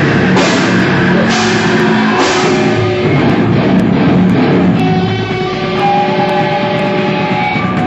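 Live rock band playing loud, with electric guitar and drum kit. Strong accented hits land about once a second for the first few seconds, then held guitar chords ring out.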